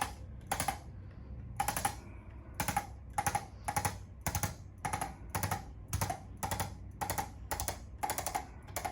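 A chiropractic adjustment along the neck and upper spine, heard as a long run of sharp, ringing clicks at about two a second.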